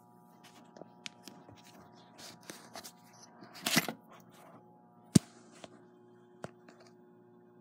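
Handling noise from the recording camera being picked up and fumbled: scattered clicks and rustles, a brief scraping rustle just before the middle, and one sharp knock about five seconds in, over a faint steady hum.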